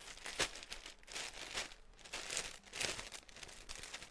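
Clothes being handled and shaken out: a few short bursts of rustling and crinkling, the sharpest near the start.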